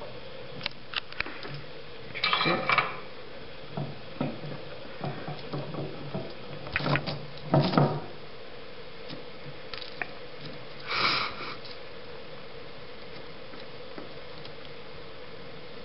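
Small clicks, taps and rustles from fingers handling a plastic model locomotive chassis and its thin wires, with louder handling clusters about two and a half seconds and eight seconds in and a short hissy rush about eleven seconds in. A faint steady hum sits underneath.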